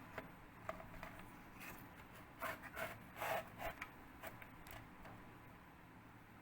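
Hard-disk caddy being slid into a laptop's optical drive bay: a series of short scrapes and clicks, the loudest coming in a cluster about two and a half to three and a half seconds in.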